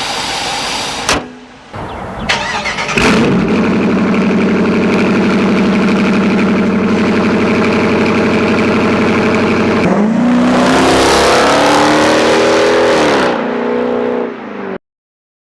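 Dodge Charger R/T's HEMI V8, fitted with a 90 mm BBK throttle body and K&N cold air intake, catches about three seconds in and idles steadily. It is revved up a few times near the end before the sound cuts off.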